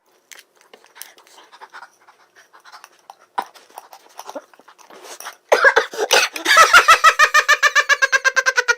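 A person's voice making a fast, loud run of short pitched pulses, like rapid panting, about ten a second. It begins about five and a half seconds in, after a few faint clicks and rustles.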